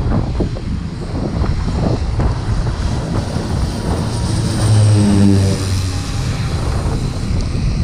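Small twin-engine propeller plane flying low overhead on landing approach, with a steady low engine drone. About five seconds in, as it passes over, the sound swells and drops in pitch.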